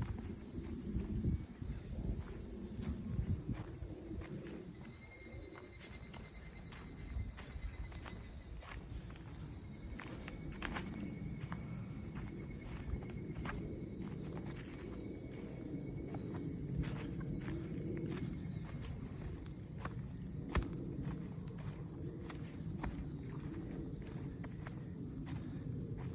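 A steady, high-pitched chorus of insects droning, with the irregular footsteps of someone walking on a forest trail underneath.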